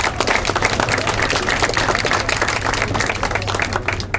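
Crowd in the stands applauding, dense clapping that tapers off near the end.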